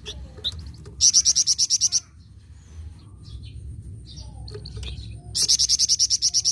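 A flamboyan songbird giving its rapid rattling 'nyecret' trill twice: loud, high, evenly pulsed notes about nine a second. The first lasts about a second, the second starts near the end. Soft scattered chirps come between the two trills.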